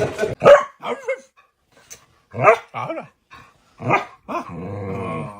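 A dog giving about five short barks, spread over a few seconds, then a longer low growl near the end.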